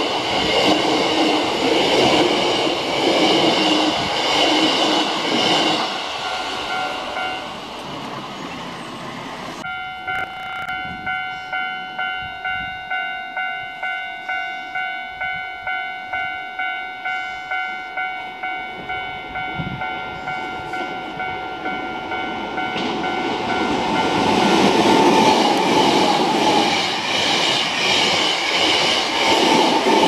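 A Hankyu Kobe Line electric train runs through a level crossing, its wheels clattering, and dies away. About ten seconds in, the crossing's warning bell takes over, ringing in an even rhythm of roughly one and a half strokes a second. From about two-thirds of the way through, the next train approaches and passes, growing loud over the bell.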